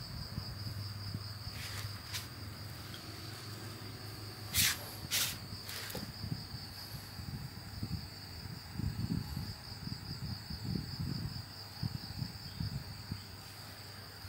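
A steady high-pitched insect trill, like crickets, over a low hum. A few sharp clicks come about five seconds in, and soft low thumps follow in the second half.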